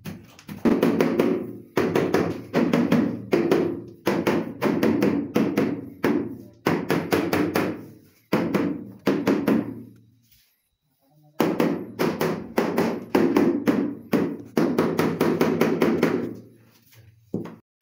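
Palms repeatedly thumping the face of a large ceramic wall tile to bed it into the adhesive, about two strikes a second, each with a short ring, pausing briefly halfway through before resuming.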